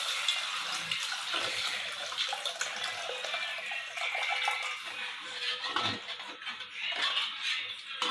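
Tamarind water poured into a hot pan of frying pepper and garlic paste, the liquid splashing and crackling in the pan.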